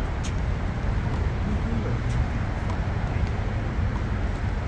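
Steady low rumble of city traffic, with a faint smack of the handball off the wall or a hand near the start.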